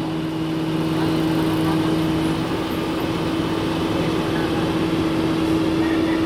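An engine idling steadily with a constant hum; a lower hum drops out about two and a half seconds in.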